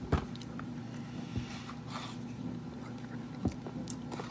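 Quiet room tone: a steady low hum, with a few light clicks and knocks, the sharpest just after the start and others about a second and a half in and near the end.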